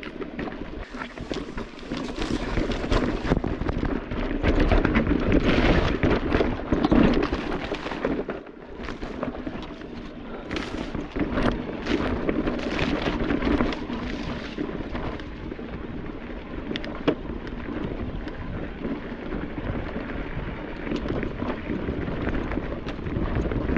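Electric mountain bike riding over a rocky trail: tyres rumbling over rocks and the bike rattling and knocking under a continuous rushing noise. It is loudest a few seconds in, with one sharp knock about three-quarters of the way through.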